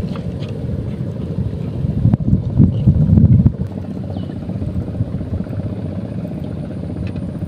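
Low, uneven rumble of wind buffeting the microphone, swelling about two seconds in and easing a second and a half later, with a few faint clicks from handling the fishing rod and reel.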